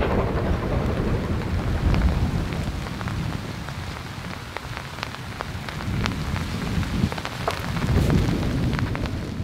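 Heavy rain falling steadily, with scattered sharp ticks of drops striking close by. A low rumble swells near the start, eases off, and builds again near the end.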